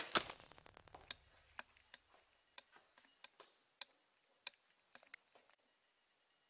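A run of sharp ticks or taps, about two a second and unevenly spaced, opening with one louder click and dying away after about five seconds.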